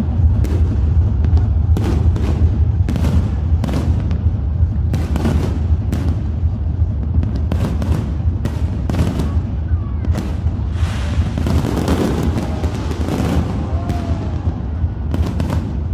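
Fireworks bursting in quick succession, many sharp bangs one after another, over a steady deep low hum and music.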